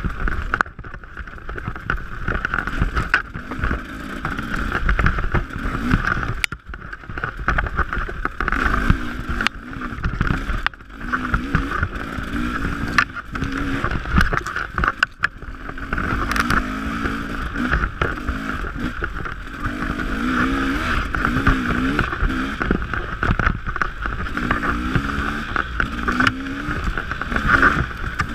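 Dirt bike engine running as it is ridden over a rough singletrack trail, its pitch rising and falling again and again with the throttle. Wind and bumps jolt the microphone throughout.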